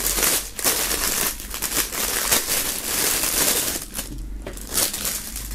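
Clear plastic film bag being pulled open and torn by hand, crinkling and crackling densely, then thinning out about four seconds in.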